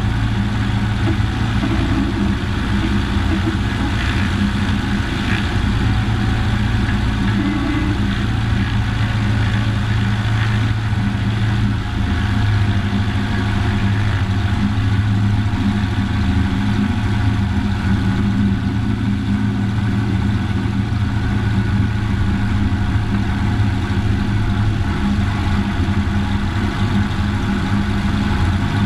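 Cessna 140's Continental O-200 four-cylinder aircraft engine running steadily and loudly, with a slight dip in level about twelve seconds in.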